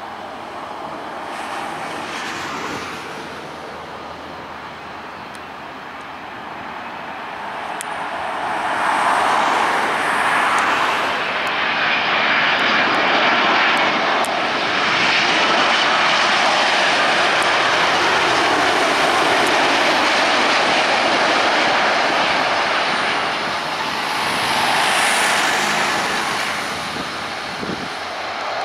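Boeing 787-8 Dreamliner's jet engines on landing approach: a jet rumble and hiss that builds as the airliner comes low overhead, stays loud for about a dozen seconds, then eases and swells once more as it reaches the runway.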